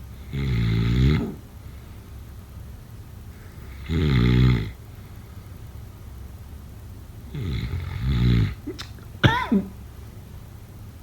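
Snoring: three snores, each about a second long, coming roughly every three and a half seconds. Near the end a short sharp squeak slides quickly down in pitch; it is the loudest sound here.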